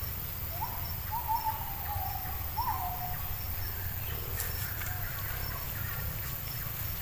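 Insects chirping steadily over a low rumble, with a bird giving a short run of whistled notes in the first few seconds.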